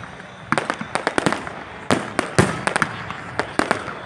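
Aerial fireworks exploding: a rapid, irregular run of sharp bangs and cracks, starting about half a second in and coming in quick clusters, with some bangs louder than the rest.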